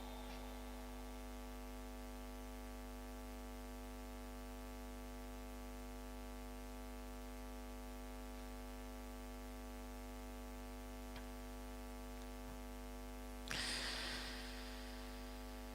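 Steady electrical mains hum from the sound system, a buzz of several even tones with no change. About thirteen seconds in, a short breathy hiss rises and fades within a second.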